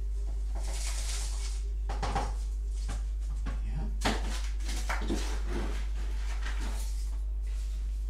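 Bonsai compost rustling and scraping as it is scooped and pressed into a cardboard cup, in irregular handling sounds with a sharp tap about four seconds in. A steady low hum runs underneath.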